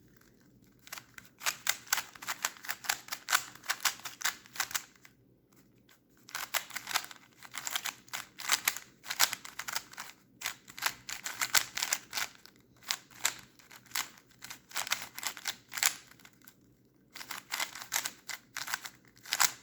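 Budget stickered plastic 3x3 puzzle cube being turned rapidly through algorithms: fast runs of clicking layer turns broken by brief pauses. The turning is a bit scratchy.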